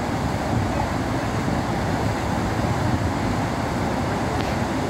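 Niagara Falls rushing: a steady, dense roar of falling water, heaviest in the low end.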